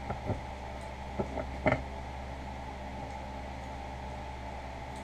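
A few short metal clicks and knocks as a knife-sanding clamp is turned and repositioned, the loudest just under two seconds in, over a steady background hum.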